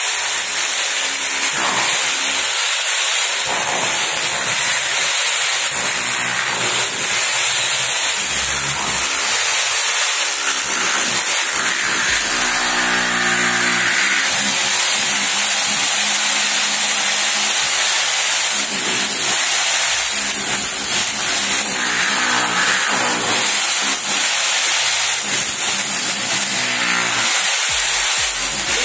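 INGCO 1500 W rotary hammer with a flat chisel bit running continuously, chipping concrete off a reinforced column.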